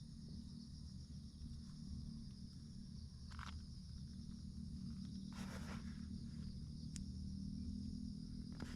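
Insects, crickets by their sound, chirring steadily in high, even bands over a low rumble, with a few brief rustles and clicks, the longest about halfway through.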